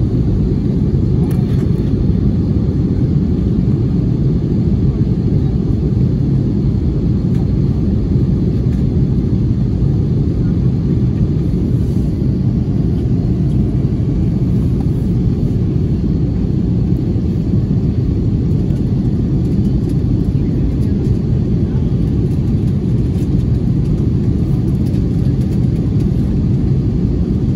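Jet airliner cabin noise in flight, heard from a window seat: a steady, loud low rumble of engines and airflow.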